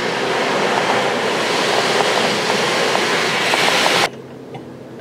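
High-pressure water jets of a touchless car wash spraying the car, a steady hiss heard from inside the car, cutting off suddenly about four seconds in.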